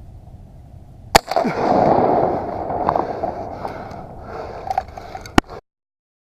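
Two sharp shotgun shots about four seconds apart. The first is followed by a couple of seconds of loud rushing noise.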